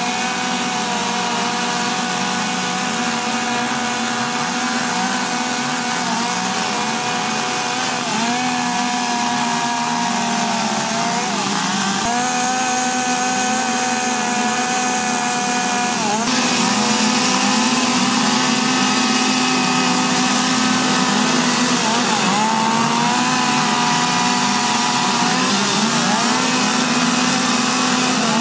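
Chainsaw running at high speed while carving into wood, its pitch dipping briefly several times as the bar bites into the cut and recovering.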